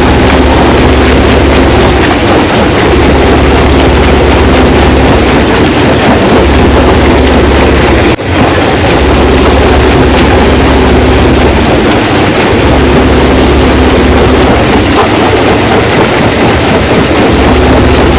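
Rock crusher running, a loud continuous mechanical rumble and rattle of stone being crushed over a steady hum. The sound drops out briefly about eight seconds in.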